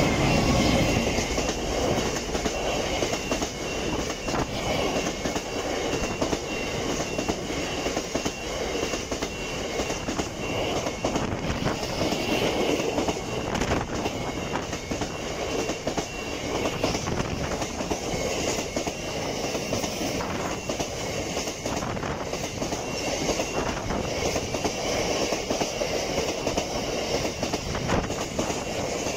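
Freight train of loaded oil tank wagons rolling past close by: a steady rumble of steel wheels with rapid clattering over the rail joints and the crossing. It is loudest at the start, as the diesel locomotive at its head goes by.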